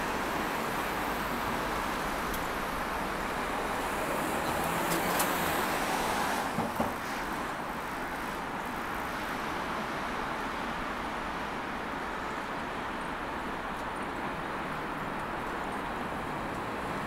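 Steady city road traffic noise, an even rush of passing cars, with a couple of brief knocks about six to seven seconds in.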